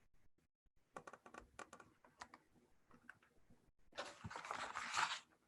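Paper handling as a picture-book page is turned: a few faint crinkly clicks, then a short papery rustle about four seconds in.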